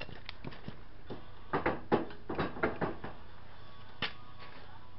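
Clunks and knocks of metal as the 1981 Honda ATC 200's engine is worked out of its frame: a quick run of about half a dozen from about a second and a half in, and one more near the end.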